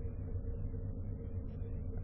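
Steady low hum with a faint, thin higher tone and light hiss throughout; no bird calls.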